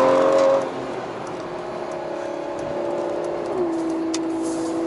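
Car engine running hard at high revs, then easing off about half a second in and carrying on at a steady note, which steps slightly lower in pitch past the middle.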